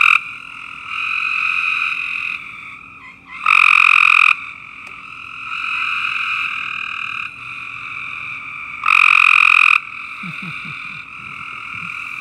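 Gray treefrogs trilling: one very close frog gives three loud trills about a second long, spaced about four to five seconds apart, over a steady chorus of other treefrogs trilling.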